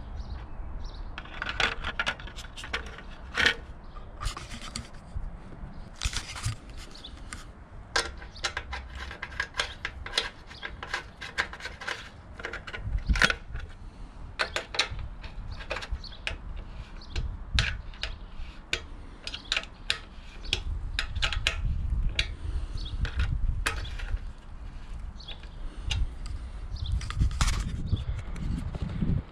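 Irregular clicks, taps and knocks of motorcycle plastic trim and parts being handled and pushed into place. A low rumble joins them in the last third.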